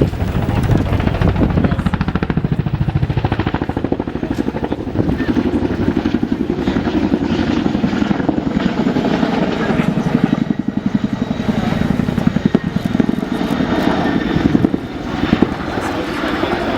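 Boeing Chinook Mk2 tandem-rotor helicopter flying a display, its two rotors beating in a rapid, steady pulse over the whine of its turbine engines. The level swells and dips as it manoeuvres.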